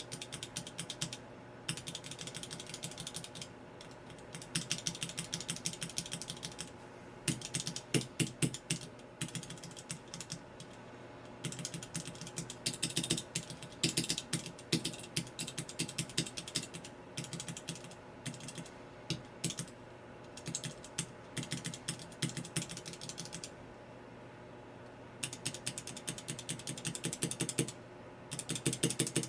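Cherry MX mechanical keyboard switches on a switch tester being pressed rapidly, giving runs of sharp clicks several a second in bursts with short pauses between them.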